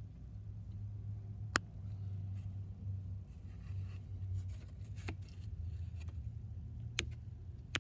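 A low steady hum, with a few isolated sharp clicks spread over several seconds.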